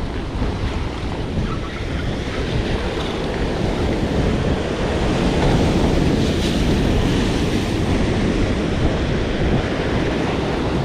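Heavy ocean surf breaking and washing over rocks, with wind buffeting the microphone. The surf swells louder about halfway through.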